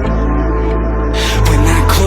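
Music: a song's intro over a steady low held bass. About a second in, drums and a sung vocal line come in and the music grows louder.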